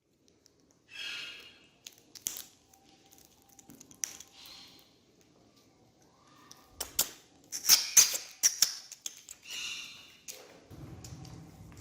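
Pet parrot making a few short, soft squeaky calls, with a run of sharp clicks in the middle.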